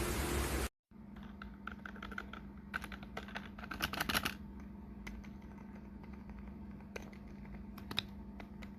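Keys being pressed on a membrane 'fake-mechanical' keyboard: a run of quick typing clicks around three to four seconds in, then scattered single key presses, over a steady low hum. It opens with a loud hiss that cuts off sharply under a second in.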